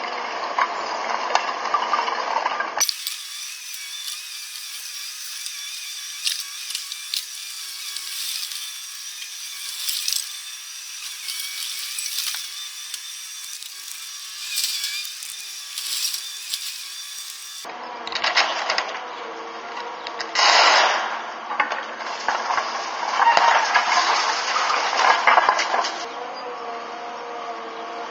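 Heavy-equipment work noise, with cracking, clattering and knocks, across several clips cut together. The middle stretch sounds thin, with its low end cut off, and louder crunching bursts come near the end.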